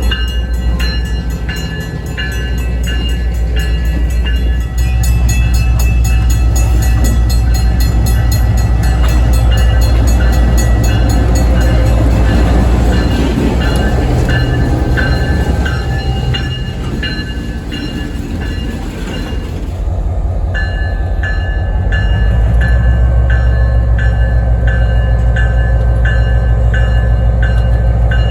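Passenger train running: a steady low engine drone, with evenly repeated clicks of the wheels over rail joints and short high squeals. About two-thirds of the way through, the highest part of the sound drops away.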